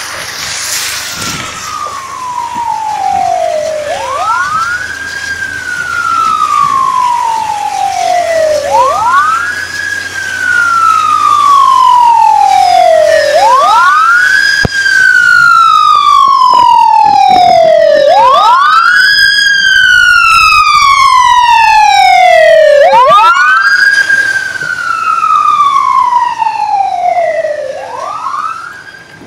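Emergency siren wailing loudly, each cycle a quick rise in pitch followed by a slow fall, repeating about every four and a half seconds, six times over.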